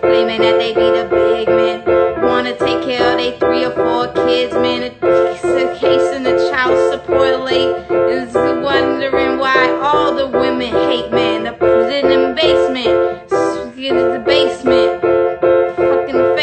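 Music playing: keyboard chords repeated at a quick, even pulse, with a gliding melody line over them in the middle.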